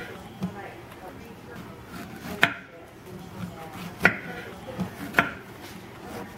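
Kitchen knife cutting strawberries on a bamboo cutting board: a few sharp knocks, unevenly spaced, as the blade goes through the fruit and strikes the board. The loudest knock comes about two and a half seconds in.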